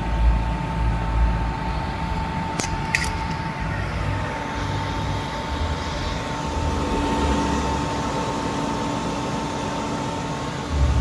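Rittal panel air conditioner running, its internal cooling fan fitted with a new 608ZZ bearing to cure a noise problem: a steady hum with a steady tone over it. Two short clicks come about two and a half seconds in, and a second, lower tone joins about four seconds in.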